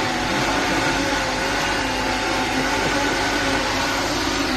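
Steady, even machine noise with a faint hum.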